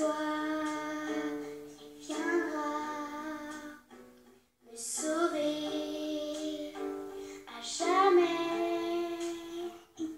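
A French song: a high singing voice holds long, wavering notes over light accompaniment, in two phrases with a short break about four seconds in.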